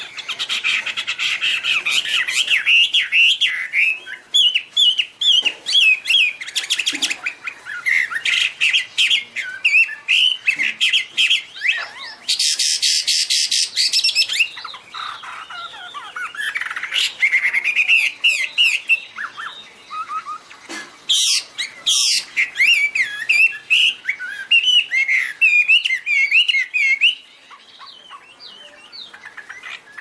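Chinese hwamei (Garrulax canorus) singing: a long, fast run of varied, looping whistled phrases. Harsh, rasping bursts break in about twelve seconds in and again about twenty-one seconds in, and the song eases off near the end.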